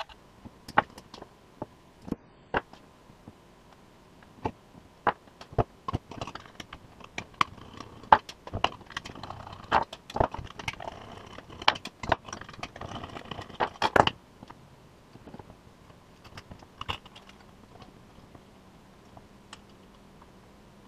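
Irregular clicks, taps and scrapes of hands handling cooling fans, wires and tools on a wooden table. They come thick and fast through the middle, with one sharp click near the end of that stretch, then thin out to occasional light taps.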